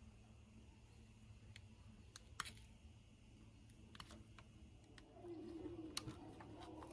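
Faint, scattered light clicks and taps, about seven of them at irregular intervals, over a low steady hum; a soft rustle comes in about five seconds in.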